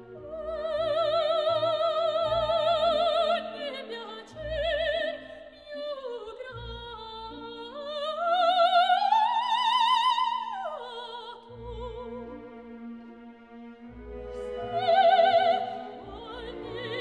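Lyric soprano singing an operatic aria with orchestral accompaniment: held notes with wide vibrato, a long rise to a loud high note about halfway through that then falls away, and another loud sung phrase near the end, over low string and orchestral support.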